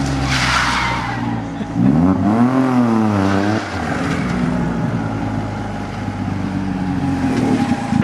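Smart Fortwo's three-cylinder engine running through an aftermarket Doug Thorley exhaust with a steady drone. About two seconds in, the engine note rises and falls back once.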